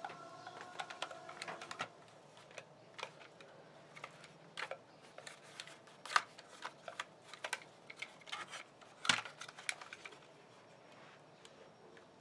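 Light, irregular clicks and taps of small hard objects being handled, several a second at times, with the sharpest knocks around the middle.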